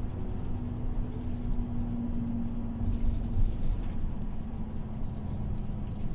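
Cabin noise of a MAN Lion's City Ü intercity bus on the move: low engine and road rumble with a drone that climbs slightly in pitch and then fades about halfway, and interior fittings rattling and clicking, most busily a little past the middle.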